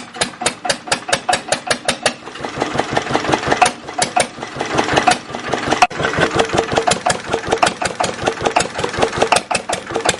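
A small engine running with a rhythmic chugging beat, about four to six pulses a second, slightly uneven.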